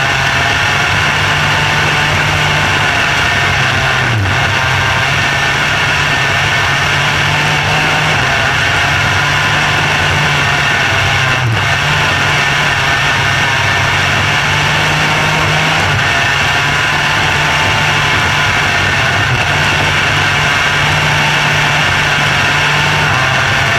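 Micro sprint car's engine running hard at racing speed on a dirt oval, heard up close from the cockpit, its pitch dipping briefly every few seconds.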